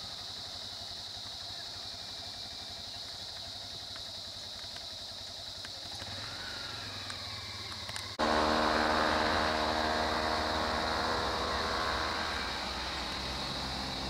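Vehicle engine idling with a steady low hum, under a steady high hiss. About eight seconds in, the sound jumps suddenly louder into a steady engine drone with a clear pitch, which eases off slightly toward the end.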